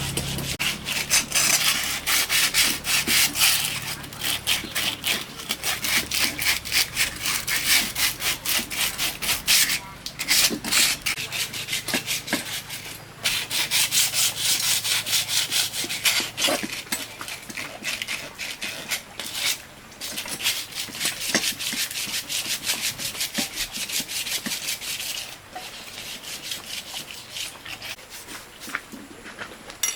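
Rapid back-and-forth rasping strokes of hand abrasive work on a hard part, several strokes a second, breaking off briefly about ten and thirteen seconds in and growing lighter near the end.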